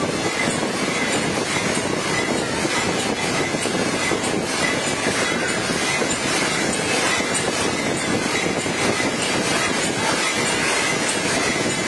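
Aerosol tin can vacuum leak tester machine running: a steady, dense mechanical clatter and rattle, with a faint high tone that keeps coming back.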